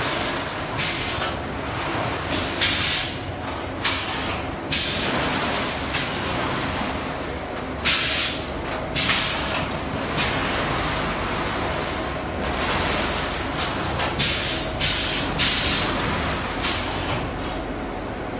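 Automatic jigsaw-puzzle die-cutting and packaging line running, a steady mechanical din broken by frequent, irregular bursts of hiss and sharp clacks.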